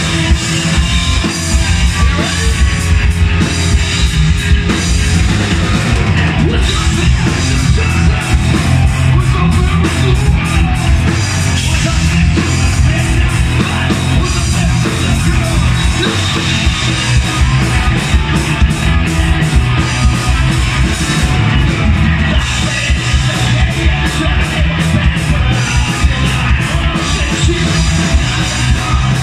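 Rock band playing live on electric guitars, bass and drum kit: loud and unbroken, with fast, heavy drumming.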